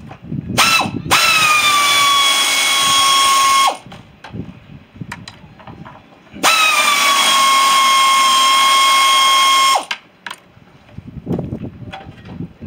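Cordless power drill running in two bursts of about three seconds each. A brief blip of the motor comes just before the first burst. At the start of each burst the whine dips slightly in pitch, then holds steady until it cuts off. Light knocks and handling clatter fill the gap between the bursts.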